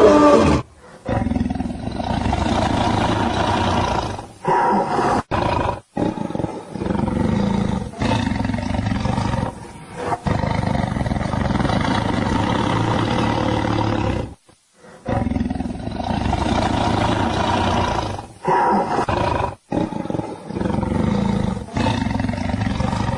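Lion growls and roars, nearly continuous, broken by several abrupt short gaps.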